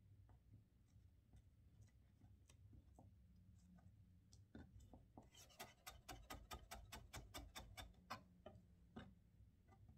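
Faint kitchen knife cutting radish into julienne on a wooden cutting board. Scattered single cuts at first, then about halfway in a quick, even run of about five cuts a second lasting around three seconds, followed by a few more cuts.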